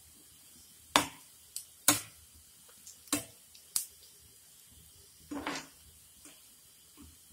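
Perforated metal spatula clinking and scraping against a frying pan as bread cubes frying in oil are stirred: about half a dozen sharp, irregular clinks with a short rattle near the middle, over a faint hiss of the hot oil.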